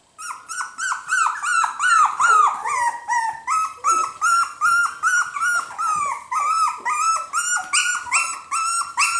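A 4-week-old cockapoo puppy yapping in a quick, unbroken string of high-pitched yips, about three or four a second: a young pup just finding her voice.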